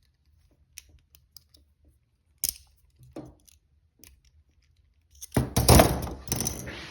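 Steel handcuffs being picked: small scattered metallic clicks and a sharper click about two and a half seconds in, then loud metal rattling and jangling about five seconds in as the cuffs are handled.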